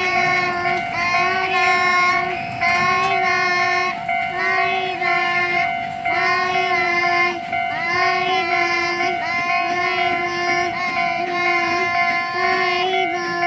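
Music with singing: a melody of short, evenly paced sung notes over one steady held tone.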